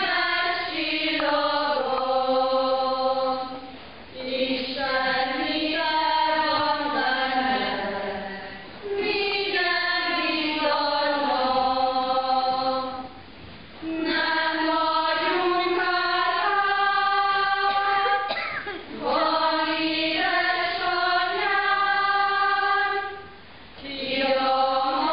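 A group of women singing unaccompanied. The song moves in long phrases ending on held notes, with a short break between phrases every four to five seconds.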